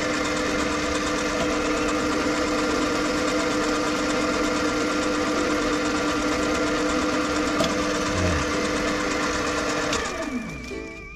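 Small metal lathe running steadily, its chuck spinning a bronze-filled PTFE workpiece being turned to size, a steady machine hum with several fixed tones. About ten seconds in it is switched off and the pitch falls as it spins down.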